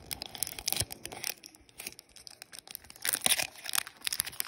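Foil wrapper of a Pokémon XY Evolutions booster pack crinkling and rustling as it is handled and the cards are slid out of it, in short bursts about a second in and again around three seconds in.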